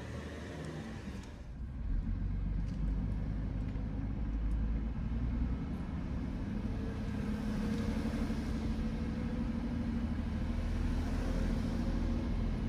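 Steady low engine and road rumble heard from inside a slowly moving vehicle, growing louder about two seconds in as it gets under way.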